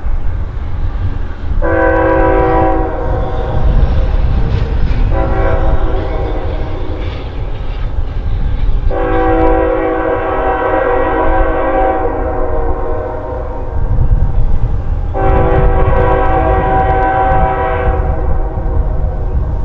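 Freight train's lead diesel locomotive, a GE ES44AC, sounding its air horn: a short blast, then a long one of about seven seconds that gets louder partway through, then another long blast near the end. A steady low rumble of the locomotives and rolling train runs underneath.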